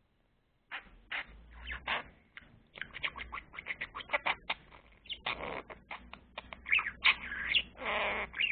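Budgerigar chattering: a quick run of short chirps and clicks, with a few longer scratchy warbles past the middle.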